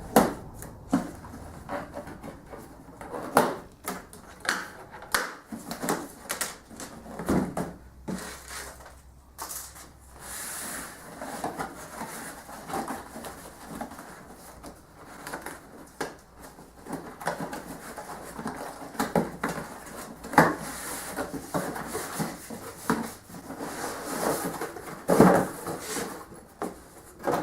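Cardboard box and its contents being handled and unpacked: irregular rustling and scraping with scattered knocks and clunks.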